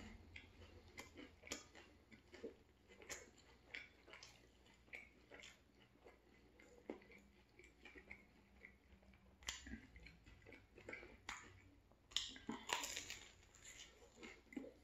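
A person chewing a mouthful of soft turkey sandwich: scattered soft mouth smacks and clicks, with a louder cluster about three-quarters of the way through.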